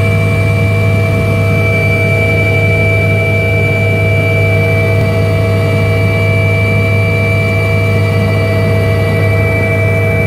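Helicopter in steady cruise heard from inside the cabin: a loud, even drone of rotor and turbine with a constant high whine above it.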